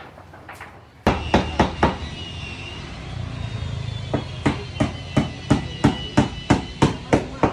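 Sharp, even knocks, like hammer blows: three quick ones just after a second in, then after a short pause a steady run of about three a second, over a low steady hum.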